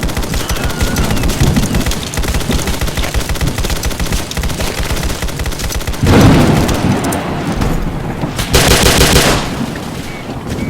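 Gunfight sound effects: rapid, continuous automatic gunfire, with a loud blast about six seconds in and a harsh burst about a second long near the end.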